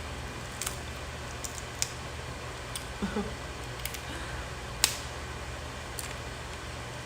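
Crab leg shells cracking and snapping while being eaten: a handful of sharp, irregular cracks, the loudest nearly five seconds in, over a steady low hum.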